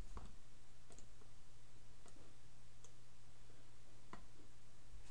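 A few faint computer mouse clicks, about four spread out with pauses between, over a steady low electrical hum.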